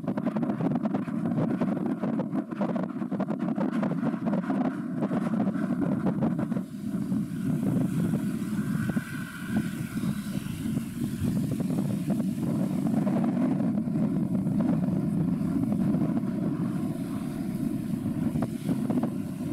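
A low, uneven rumble: wind on the microphone over the water, with vessel engine noise beneath it.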